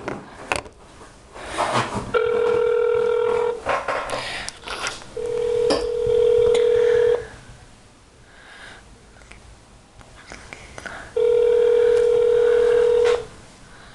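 Telephone ringback tone of an outgoing call, heard from the phone's speaker: three steady rings, the last two about two seconds long with about four seconds of quiet between them, the call not yet answered. Light handling clicks and rustles in the gaps.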